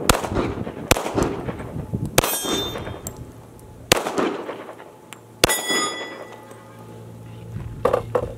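Five pistol shots from a Glock 23 in .40 S&W, spaced about one to one and a half seconds apart, firing handloads primed with small rifle primers. After two of the shots a steel target rings on. Near the end come two lighter clicks.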